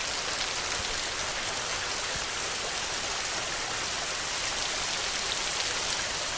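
Steady rain: an even hiss of many raindrops falling on a surface, holding at one level throughout.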